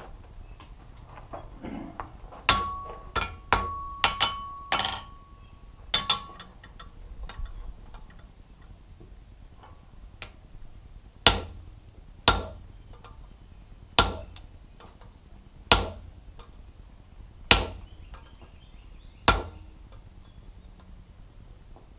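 Blacksmith's hand hammer striking a handled, radiused punch on the hot jaw of a tong blank over an anvil, sinking a round gripping groove into the jaw. A quick run of about eight blows a few seconds in, with a ringing tone hanging over them, then six single strikes spaced about every one and a half to two seconds.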